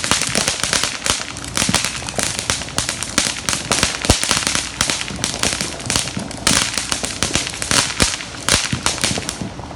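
Consumer fireworks crackling: a dense, rapid run of sharp pops and snaps, with a few louder bangs mixed in, about four seconds and eight seconds in.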